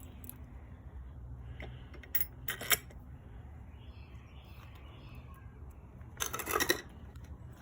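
Metal parts clinking and rattling as they are handled while fitting the grinder to its stand: a few sharp clinks about two to three seconds in and a short burst of rattling about six seconds in.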